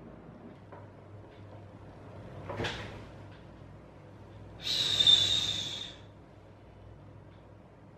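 A person shushing: one loud 'shhh' lasting about a second and a half, which starts about four and a half seconds in. A shorter, softer whoosh comes about two and a half seconds in.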